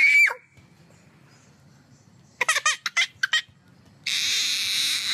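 A baby gives a few short, high squeals, then about four seconds in bursts into a loud, shrill crying scream.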